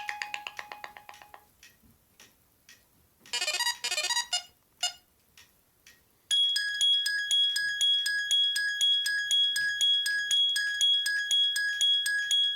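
A ZTE Kis smartphone playing its built-in ringtones one after another. A tune fades out, a short chime sounds about three seconds in, and from about six seconds a high electronic ring pulses steadily a few times a second until the next tone starts near the end.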